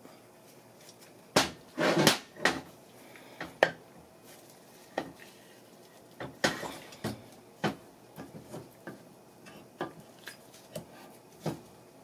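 Briggs & Stratton vertical-shaft engine block, crankshaft fitted, being turned over and set down on the workbench: a run of irregular knocks and clunks of metal on the bench, loudest in the first few seconds and again about halfway.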